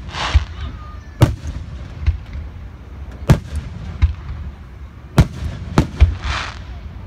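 Aerial firework shells bursting: sharp bangs and deeper booms about once a second, with two short stretches of hiss.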